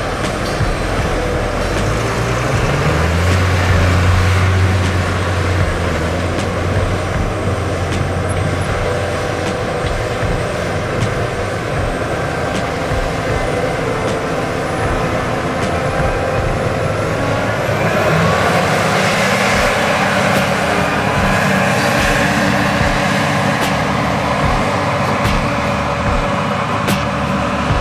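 A vehicle's engine running amid loud, steady noise, its low tone rising about two seconds in.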